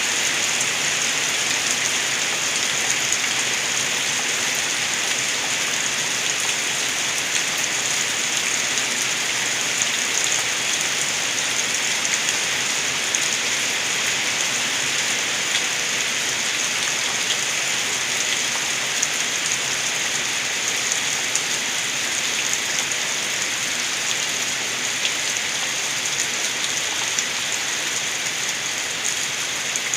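Rainwater gurgling and splashing outside a window in steady rain: an even hiss of falling rain, flecked with scattered drip ticks.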